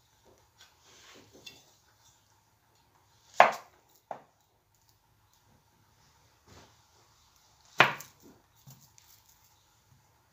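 A kitchen knife cutting through peeled bananas and knocking down onto a cutting board: two sharp knocks about four seconds apart, with a few lighter taps around them.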